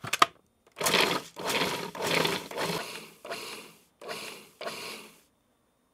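Food processor run in about six short pulses, its blade chopping cold butter and large-flake rolled oats into flour and brown sugar for a crumbly crust mix.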